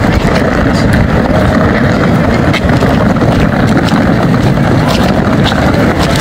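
Loud, steady low rumbling noise with no distinct events, most of it in the low and middle range.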